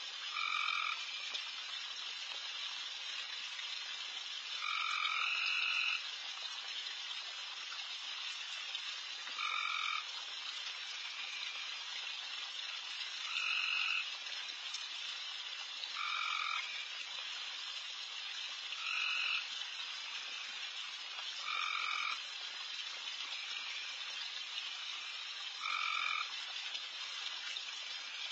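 A loud chorus of pond frogs calling at night: a dense, unbroken background of calls, with a louder call from a nearer frog breaking in about every four seconds.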